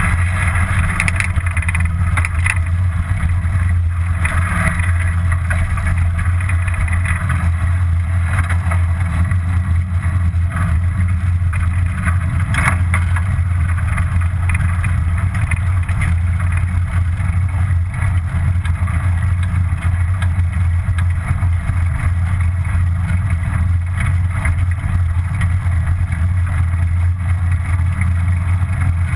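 Steady rumble of wind and road noise on a bike-mounted action camera while cycling, with a few brief knocks from bumps along the way.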